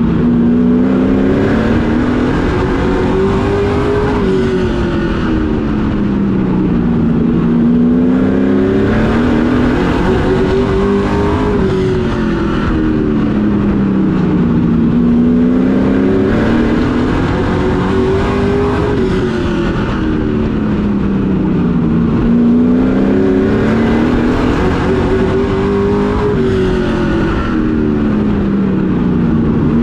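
Pro Truck race truck's engine heard from inside the cockpit at racing speed, its pitch climbing on the throttle and then falling off once every lap of the short oval, about every seven seconds, four times over.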